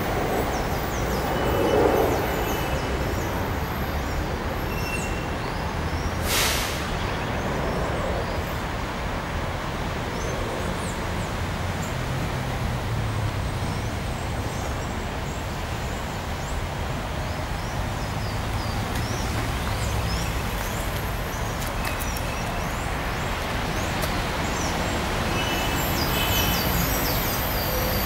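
Steady drone of city traffic, with scattered short high chirps over it and a brief hiss about six seconds in.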